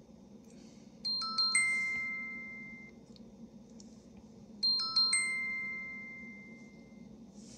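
Smartphone message alert chime, sounding twice about three and a half seconds apart: each a quick run of four or five bell-like notes that ring on and fade. It marks the arrival of the SMS verification code.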